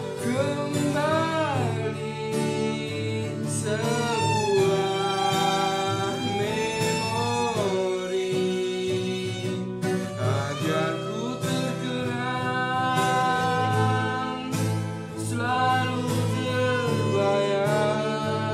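Music: a song with a solo singing voice, its melody sliding and wavering, over instrumental backing with a steady low beat.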